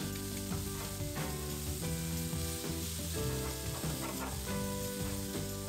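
Sliced pork belly, onion and garlic sizzling in hot oil in a nonstick frying pan while chopsticks stir them, over background music.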